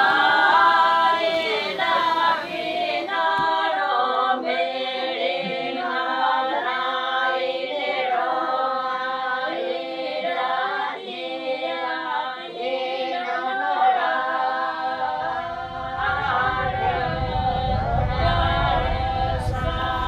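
A group of voices singing an unaccompanied song together, in a steady chanted melody. A low rumble comes in underneath the singing for the last few seconds.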